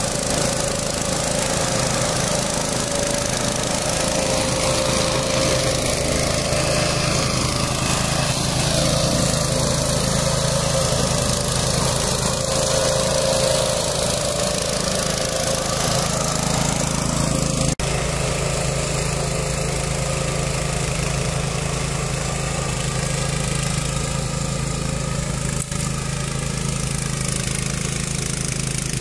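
Single-cylinder four-stroke Loncin 352 cc engine of a DAKR Panter FD3 ECO walk-behind tractor running steadily, driving an M121 twin-rotor mulcher through grass. There is a momentary break in the sound a little past halfway.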